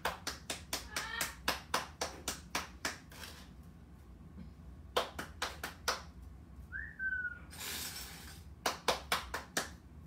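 Hands clapping in quick runs of about four claps a second, three runs with pauses between. Near the middle a short whistled note, followed by a brief hiss.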